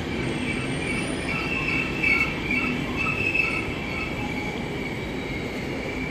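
SBB passenger train coaches rolling slowly into a platform as the train brakes, with a high-pitched squeal of several steady tones over the rumble of the wheels.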